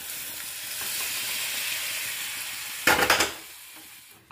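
Boiled vegetables and their water poured into a hot kadhai of tamarind-water rasam base, with a steady sizzling hiss. About three seconds in comes a brief loud clatter, and then it quietens.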